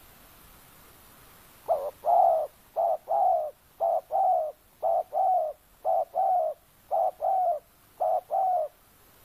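Spotted dove (tekukur) cooing: seven repeated two-note phrases, a short coo followed by a longer one, about one phrase a second, beginning just under two seconds in.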